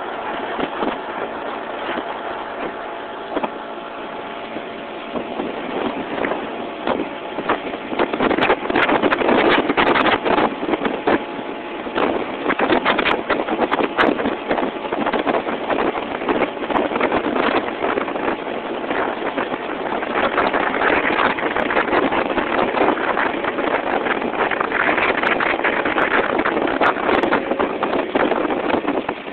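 Small boat's outboard motor running steadily under way, with wind buffeting the microphone and growing louder and rougher from about six seconds in.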